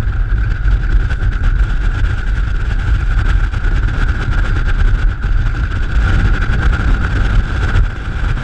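Wind buffeting the microphone in a steady, heavy rumble, with a steady high-pitched hum underneath.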